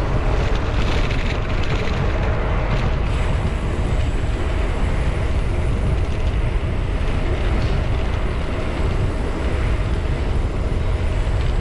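Steady wind rush and road rumble on the microphone of a Brompton folding bicycle riding along the road.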